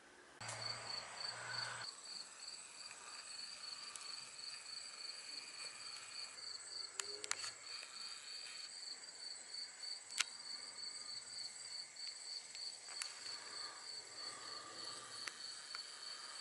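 Faint insect trill: a steady, fast-pulsing high note that runs on without a break, with a few faint clicks.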